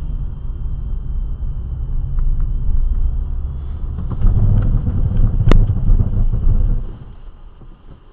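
Car road and engine rumble picked up by a dashcam microphone while driving, with a thin steady high whine from the recorder. A few light clicks, one sharp knock about five and a half seconds in, and the rumble drops off sharply about seven seconds in.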